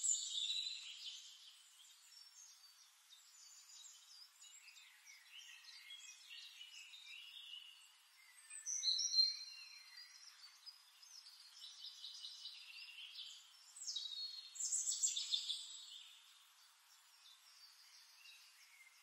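Birds chirping and singing in high, quick calls, in louder bursts near the start, about nine seconds in and around fifteen seconds in, with softer chirping in between.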